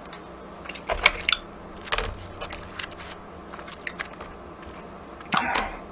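Chewing with a few sharp, crisp crunches, about one and two seconds in, from fried battered tangsuyuk (Korean sweet-and-sour pork).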